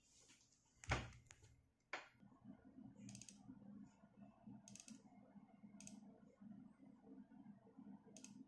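Faint computer mouse clicks, a handful spaced a second or more apart, with a sharper knock about a second in, over a faint low hum.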